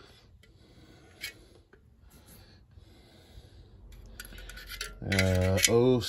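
Faint rubbing and scraping of hands working over an old sump pump's metal casing, with a light click about a second in. A man's voice comes in loudly near the end.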